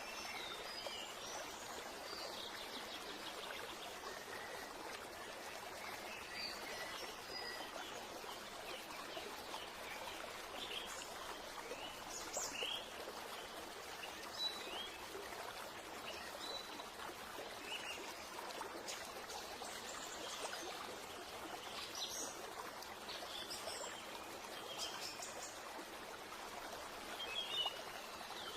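Steady running water, like a stream, with scattered short bird chirps over it: a nature ambience.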